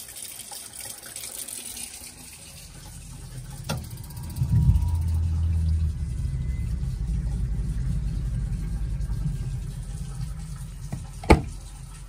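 Tap water running into a sink, then about four seconds in a Girard GSWH-2 tankless propane water heater kicks on as the hot water flows, its fan running with a steady low hum. A sharp click near the end.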